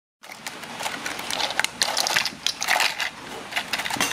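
Plastic toy building blocks clicking and clattering irregularly as a baby monkey moves among them and handles them.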